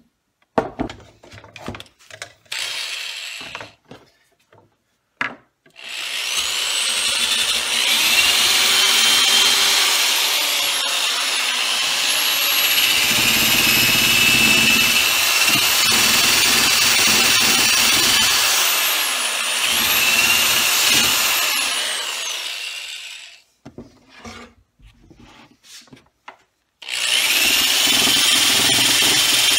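Corded electric drill spinning a brass wire wheel brush against the plastic spokes and hub of an old steering wheel, scuffing the cracked areas clean to prepare them for epoxy. After a short burst, it starts about six seconds in and runs with a high whine whose pitch sags and recovers twice as the brush is pressed in. It stops for a few seconds with some handling clicks, then starts again near the end.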